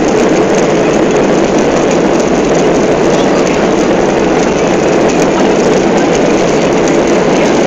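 Steady, loud rush of jet engine and airflow noise heard inside an airliner's cabin over the wing, on descent for landing.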